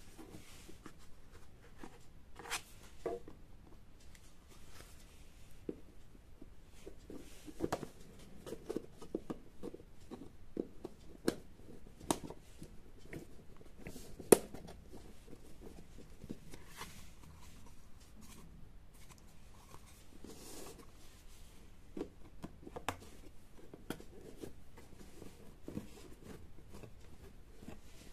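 Light taps, clicks and rustles of thin printed diorama wall panels being handled and folded up into a model garage, with one sharper click about fourteen seconds in.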